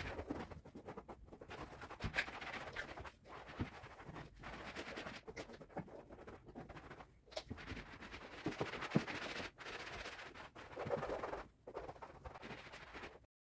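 Household cleaning sounds: irregular scrubbing and wiping scratches with small knocks as things are handled, cutting out abruptly near the end.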